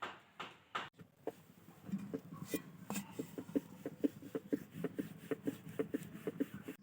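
Rhythmic knocking at about three knocks a second over a steady low hum; the knocking pauses briefly about a second in and picks up again after two seconds.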